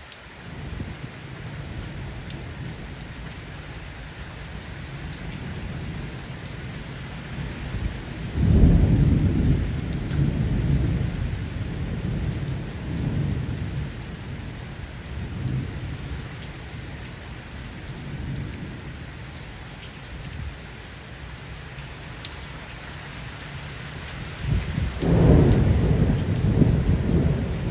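Steady rain falling, with thunder. A long low rumble rolls in about eight seconds in and dies away over several seconds, and another rumble builds near the end.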